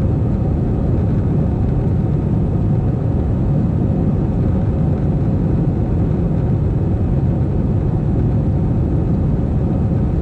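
Steady jet airliner engine and airflow noise heard inside the passenger cabin: a deep, even rumble with no change in level.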